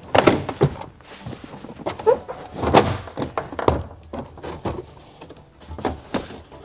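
Car interior trim being fitted: the rear package tray knocking and scraping against the surrounding panels as it is worked into place. There is an irregular series of knocks and thunks, the loudest about three seconds in.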